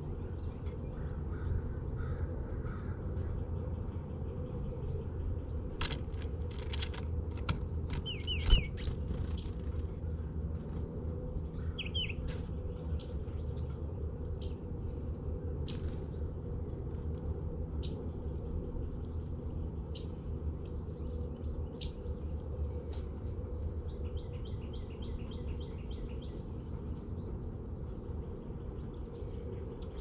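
Wild birds chirping and calling, scattered short notes over a steady low background rumble, with one sharp knock about eight seconds in. Toward the end a bird repeats a quick run of notes over and over.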